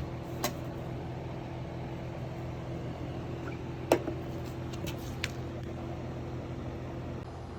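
Steady low machine hum, with a few light clicks or clinks about half a second in, near four seconds and around five seconds.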